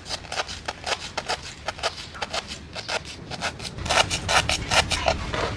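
Kitchen knife slicing lemongrass stalks into thin rounds on a cutting board: quick, crisp chopping cuts, about three or four a second, louder near the end.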